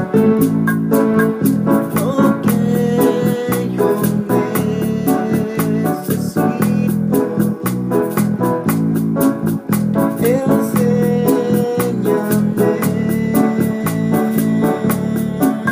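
Instrumental interlude on an electronic keyboard with an organ-like sound, sustained chords under short melodic runs, over a steady programmed beat.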